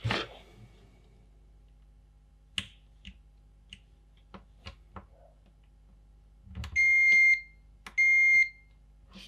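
Multimeter continuity tester beeping twice, two steady high beeps each about half a second long, as the probes touch a pair of switch pins that are connected. Before them come a few light clicks of the probes on the pins.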